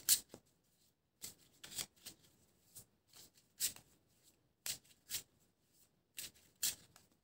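Tarot deck being shuffled and handled by hand: a string of short, crisp card snaps in small clusters.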